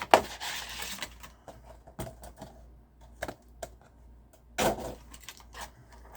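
Plastic model-kit packaging being handled and opened: a sharp snap at the start, about a second of rustling, then scattered clicks and taps, with another burst of rustling about four and a half seconds in.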